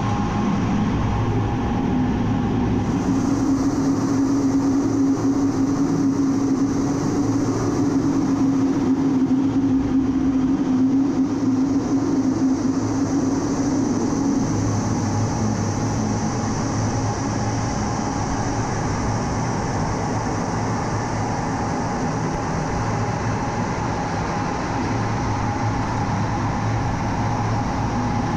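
Steady drone of an A-10 Thunderbolt II's twin TF34 turbofan engines and rushing air, heard inside the cockpit in flight, with a low hum that gives way to a deeper one about halfway through.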